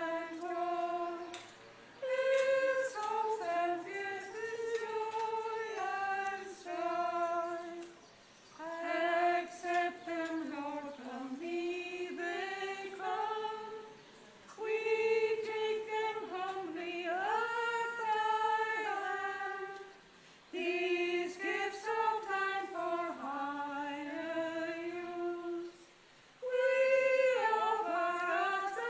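Unaccompanied singing of a hymn, in phrases of about six seconds with short pauses between them.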